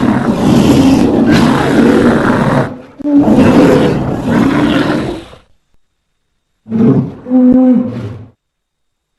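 Grizzly bear roaring three times: a long roar that is already under way and stops near three seconds in, a second long roar right after it, and after a short pause a shorter, more even-pitched roar.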